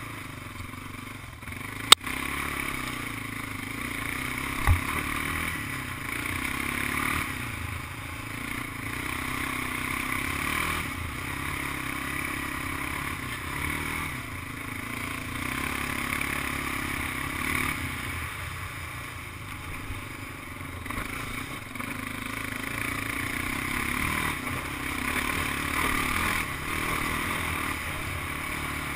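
Big Honda ATV being ridden, its engine running with the load rising and falling, along with rattling and scraping over rough ground. A sharp click comes about two seconds in and a thump a few seconds later.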